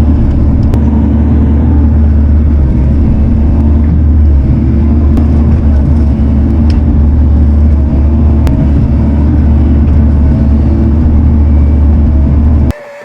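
Bobcat T650 compact track loader's diesel engine running steadily under load as a loud, low drone, heard from the cab. It cuts off suddenly near the end.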